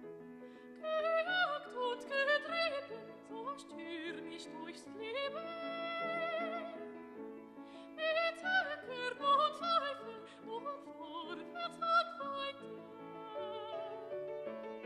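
Classical-style singing: a high voice with wide vibrato over a steady instrumental accompaniment. The voice comes in about a second in and drops out near the end, leaving the accompaniment alone.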